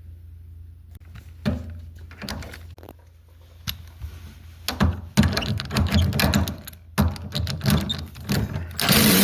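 Knocks and clicking of a hand tool undoing the bolts on the underside of a Danby refrigerator, sparse at first and turning into a dense run of clattering clicks about five seconds in, with a short scraping rush near the end.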